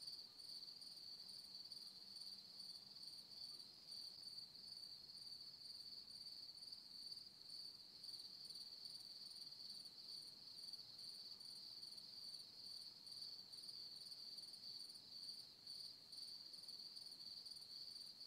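Faint, steady high-pitched insect trill that holds unchanged throughout, over a low background hiss.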